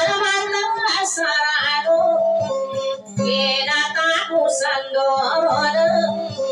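A woman singing a Maranao dayunday song into a microphone with guitar accompaniment; her voice moves in wavering, ornamented phrases over steady held notes.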